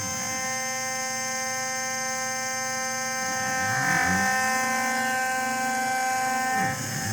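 Home-made CNC column milling machine running, a steady whine of several tones from its motors. About halfway and again near the end, a lower tone sweeps down and back up as the stepper-driven axis slows, reverses and speeds up again.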